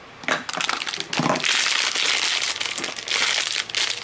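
A pink crinkly plastic toy wrapper being pulled out of a clear plastic capsule and unwrapped by hand, crinkling in an irregular run of crackles with a few sharp clicks near the start.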